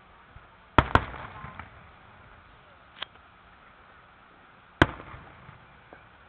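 Aerial firework shells bursting overhead. There are two loud bangs in quick succession about a second in, a fainter bang near three seconds, and another loud bang near five seconds, each loud one trailing off in echo.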